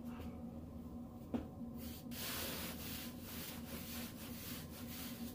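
Wave brushes' bristles rubbing over short, close-cropped hair in quick repeated strokes, starting about two seconds in. A single sharp click comes a little before the brushing.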